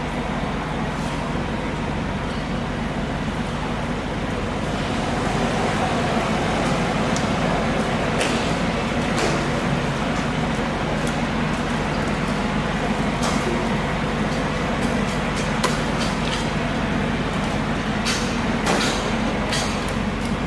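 Steady low mechanical rumble with a hum, and scattered sharp clicks and knocks, several close together near the end.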